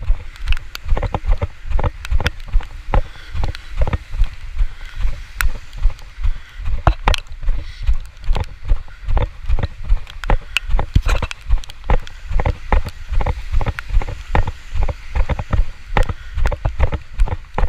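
Regular low thuds, about two to three a second, of brisk footsteps and the jolting of the handheld camera as its holder walks.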